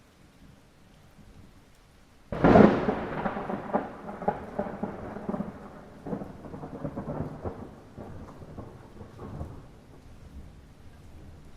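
Light rain falling steadily. About two seconds in, a sudden sharp clap of thunder cracks, then rolls on as a crackling rumble that fades away over about seven seconds.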